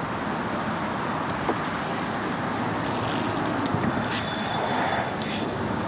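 Steady rushing wind noise on an action-camera microphone. A faint thin high tone comes in about four seconds in and lasts about a second.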